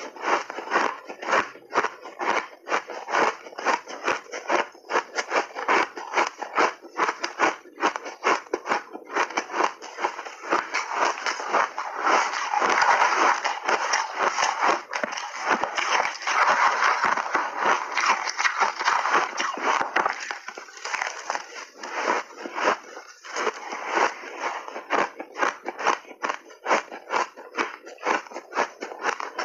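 Close-up crunching and chewing of refrozen shaved ice: a rapid run of crackling crunches that grows denser and louder for several seconds in the middle.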